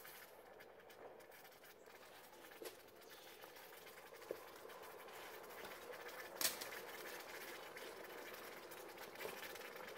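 Hot, freshly cast copper-alloy ingots in a tub of quench water, the water faintly bubbling and crackling around them. A few sharper pops break through, the loudest about six and a half seconds in.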